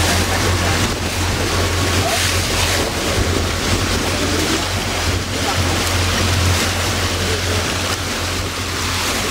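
Steady low drone of a llaut's engine under way on a choppy sea, mixed with wind buffeting the microphone and the wash of waves against the hull.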